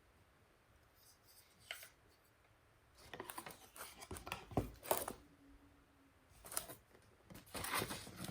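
Handling noise from the gimbal's retail packaging, starting about three seconds in: irregular rustling, light clicks and scrapes as the box and its insert are handled.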